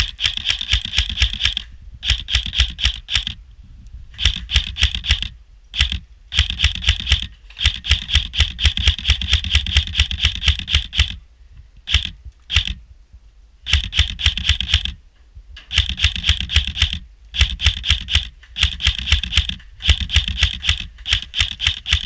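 Airsoft rifle firing full-auto, a rapid clatter of shots in about a dozen bursts of one to three seconds with short pauses between them.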